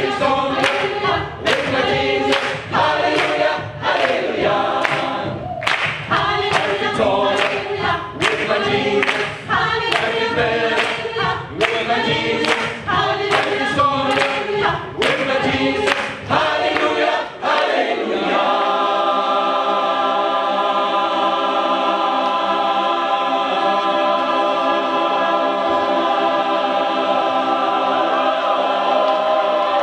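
Mixed gospel choir singing a cappella: a rhythmic passage with short breaks, then, about 18 seconds in, a long held chord, with one voice sliding down near the end.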